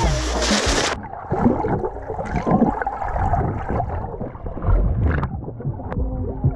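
Water heard through an action camera submerged underwater: muffled sloshing, bubbling and rumbling, with scattered small clicks. A full, bright splash-like rush in the first second cuts off abruptly into the muffled underwater sound.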